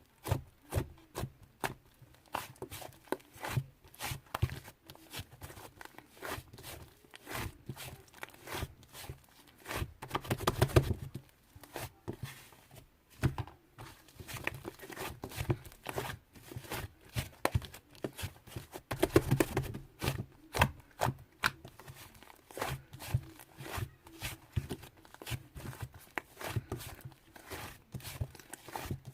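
Irregular clicks, taps and rustling handling noises, denser and louder in two stretches about a third and about two-thirds of the way in.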